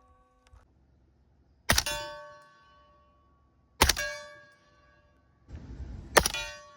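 Three suppressed 5.56 rifle shots about two seconds apart, each followed by a steel target ringing out and fading. A short rush of noise comes just before the third shot.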